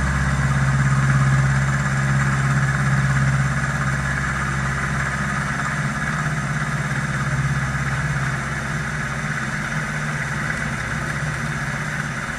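Machine tool running steadily: a low motor hum with a whirring noise over it.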